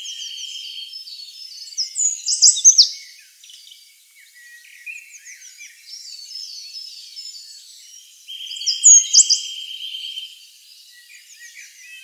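Forest songbirds chirping and singing, with many quick high notes overlapping. The loudest moments are bursts of sharp down-slurred whistles about two and a half seconds in and again about nine seconds in. A steady high buzzing trill runs through the first second and again for about two seconds from around eight seconds in.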